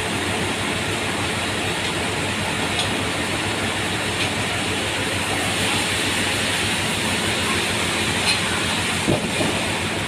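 Sawmill machinery running steadily: a dense, even mechanical noise with a low hum, and one short knock about nine seconds in.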